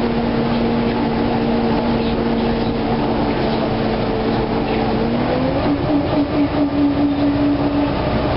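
Inside a NABI LFW transit bus under way: a steady engine and drivetrain drone over road rumble. The drone rises in pitch about five seconds in and holds there, then starts to drop back near the end.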